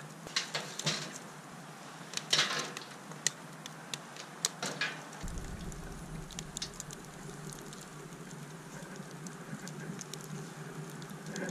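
Wood fire crackling and popping inside a homemade barrel wood stove, with irregular sharp pops, most of them in the first half. A low rumble comes in about halfway through and carries on.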